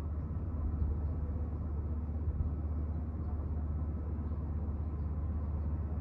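Steady low rumble of outdoor background noise, heaviest in the bass, with no distinct events.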